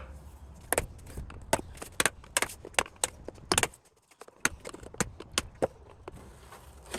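Hand tools working at an electric organ's nailed-on key covers: an irregular series of sharp clicks and light metallic knocks, with a brief pause about four seconds in.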